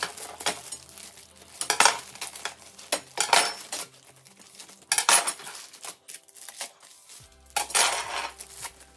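Thin metal stair rods clinking and rattling against each other and the floor as they are pulled out of their plastic bag, with the plastic crinkling; the clatter comes in several separate bursts.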